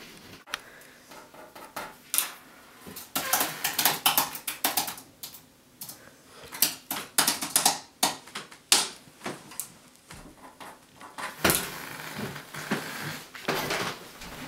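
Typing on a computer keyboard: quick, irregular key clicks coming in short runs.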